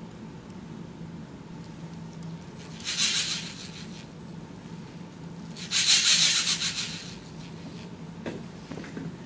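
Two short bursts of whirring and gear chatter from the LEGO Mindstorms motors of a cable-driven robot, each about a second long, the second louder, as they wind the cables to damp out a disturbance. A steady low hum lies under it, with a few small clicks near the end.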